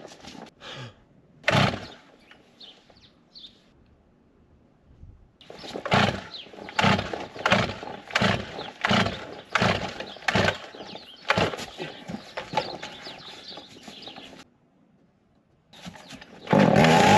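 Two-stroke chainsaw being pull-started over and over, about ten quick yanks of the starter cord that fail to catch. Near the end the engine fires and runs loud, revving up and down. The hard starting is put down to gas left in the saw over the winter.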